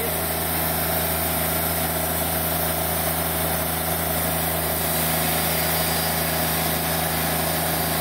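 Wood-Mizer LT40 band sawmill running at a steady pitch as its band blade saws through an eastern red cedar log.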